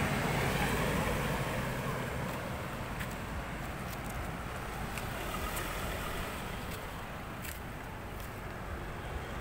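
Steady outdoor background noise with a low engine hum that fades out about two seconds in, and a few faint clicks.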